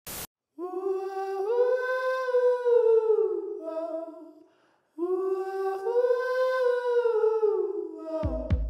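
A single voice humming a wordless melody in two long, smoothly gliding phrases with a short pause between them. A music track with a heavy bass beat comes in right at the end.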